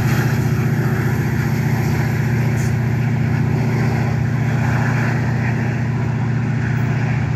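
Metra MP36PH-3S diesel-electric locomotive's prime mover running hard under power, a steady low throbbing drone, as it shoves its commuter train away from the platform. It fades slightly toward the end.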